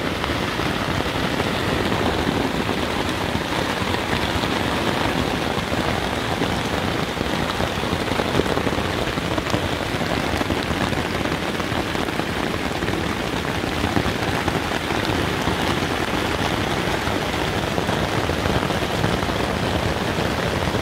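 Heavy rain falling on the fabric of a Naturehike Opalus 2 tent, heard from inside: a dense, steady patter that holds at one level throughout.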